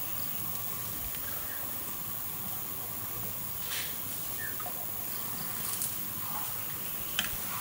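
Steady hissing forest ambience, with a few brief faint chirps and a couple of sharp clicks, about four seconds in and again near the end.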